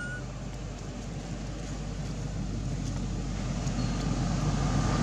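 Low rumble of an approaching motor vehicle, growing steadily louder, with a short high chirp right at the start.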